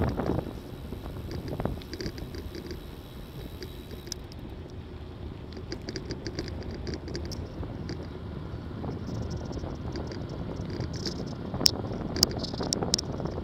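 Bicycle riding on asphalt, heard through a handlebar or seatpost camera: wind buffeting the microphone and tyre and road rumble, loudest right at the start, with a few sharp clicks near the end.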